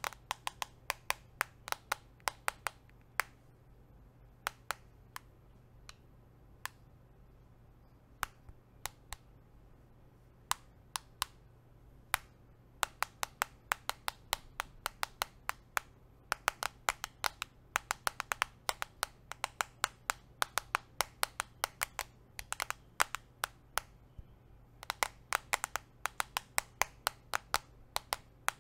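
Nail rings tapping on a smartphone: sharp, irregular clicks, sparse for a few seconds, then in quick runs of several taps a second with short pauses.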